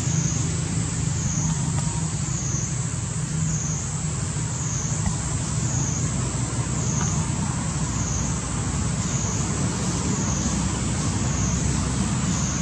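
Steady outdoor ambience: a high buzzing drone that dips and rises in pitch about once a second, over a low steady rumble.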